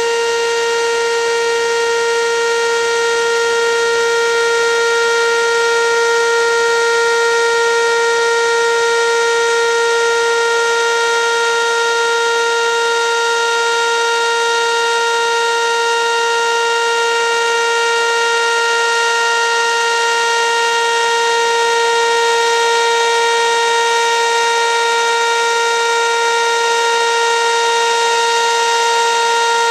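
Whelen WPS 2810 electronic warning sirens sounding a loud, steady alert tone held at one pitch, with no rise or fall, during a routine monthly siren test.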